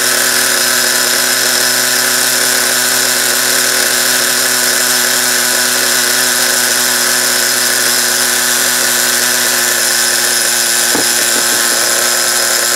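Small .15 nitro glow engine of an RC monster truck running steadily at an even pitch, already in tune on its first run.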